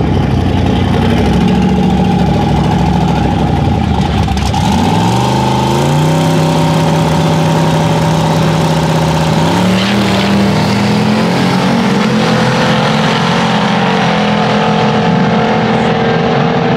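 Drag-racing pickup truck engines running loud at the strip. About four to five seconds in, the engine pitch climbs and holds high, then steps up again near the ten-second mark.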